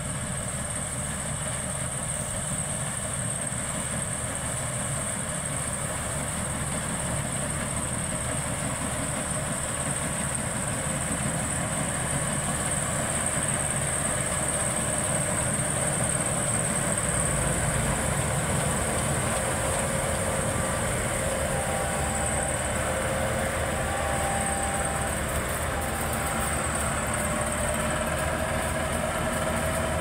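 Maxxi Bimo 102L rice combine harvester running as it cuts and threshes standing rice: a steady machine noise that grows a little louder about halfway through as it comes closer, with a steady high-pitched whine above it.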